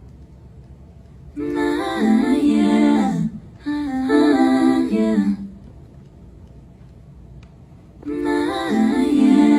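Female voice humming wordless phrases in layered harmony: two phrases close together, a pause of a few seconds, then a third starting near the end.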